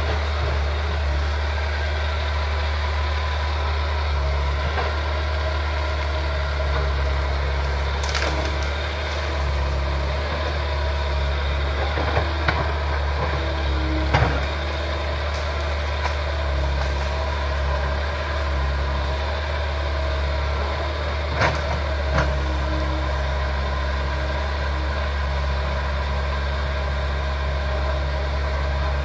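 Crawler excavator's diesel engine running steadily under load while it clears brush and trees, with a few short sharp knocks and cracks from the work.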